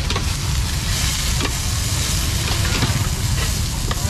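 Food sizzling in hot oil, a steady hiss with a few sharp clicks, over a heavy low rumble.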